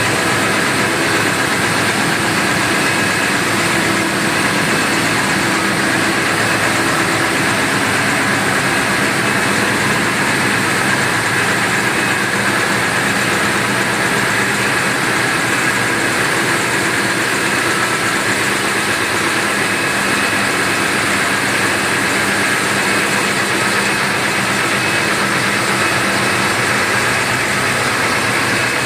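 Cummins QSK60 V16 diesel ship's main engine idling steadily while it warms up.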